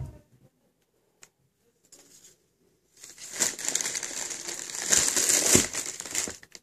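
Wrapping paper in a shoebox crinkling as a sneaker is handled over it: a few faint rustles and ticks at first, then a loud, dense crinkling from about halfway through for some three seconds.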